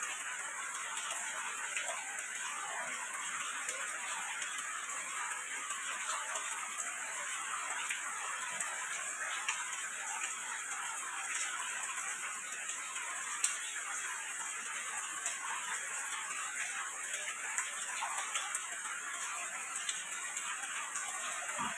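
Steady rain with a constant hiss, scattered drops ticking sharply on nearby surfaces.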